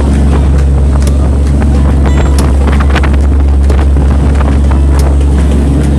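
A passenger ferry's engine drones steadily while wind buffets the microphone in a heavy, constant low rumble.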